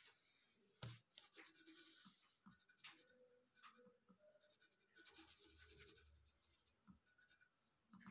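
Faint scratching of a colored pencil on paper in short, irregular strokes, with a sharp tick about a second in.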